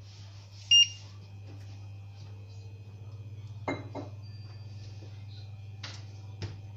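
A short, loud electronic beep from the glass-top hob's touch controls about a second in, over a steady low hum. A few light clicks and knocks follow later.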